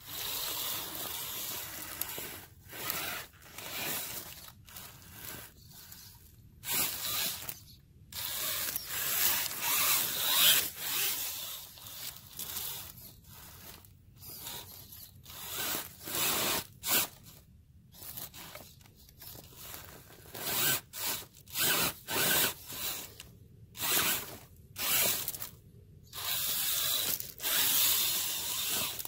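The electric motor and geared drivetrain of a scale RC crawler whir in short stop-start bursts of throttle as it climbs a pile of dead branches. Dry sticks and leaves scrape and rustle under its tyres.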